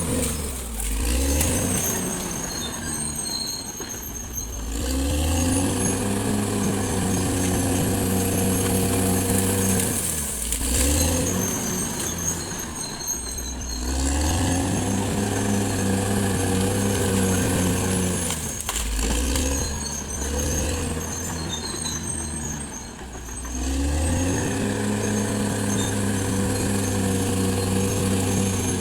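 Caterpillar D6R XL bulldozer's diesel engine revving up and then pulling steadily under load, three times in near-identical spells about nine seconds apart, with a high whine over each spell.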